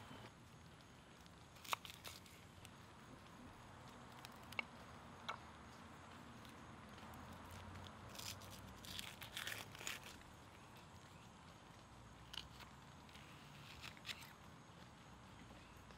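A shallot being peeled and trimmed by hand with a small knife on a wooden board: faint, scattered crackles and clicks as the dry skin tears, thickest about halfway through.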